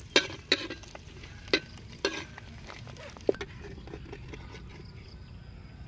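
An egg frying in a steel wok with a steady light sizzle. A metal spatula scrapes and taps against the pan about five times in the first three and a half seconds.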